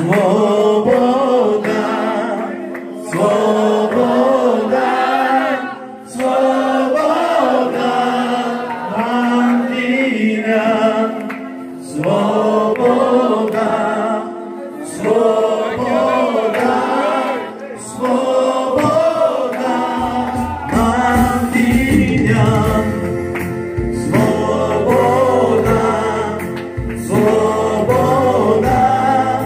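Voices singing a Christian worship song together, with a low bass accompaniment coming in about two-thirds of the way through.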